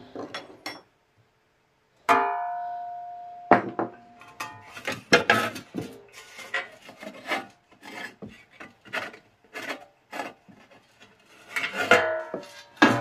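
Metal shade of a 1940s Mitchell banker's desk lamp being handled: it is knocked twice and rings on for over a second each time, then scrapes and clicks as the cord and a fitting inside it are worked, with another ringing clatter near the end.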